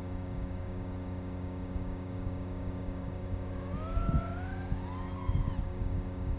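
FPV quadcopter's electric motors whining with a steady hum, their pitch sweeping up and then back down about four seconds in as the drone manoeuvres.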